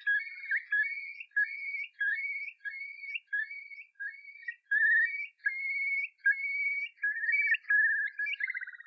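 A string of short, high whistled notes, each held briefly and stepping up and down in pitch like a tune.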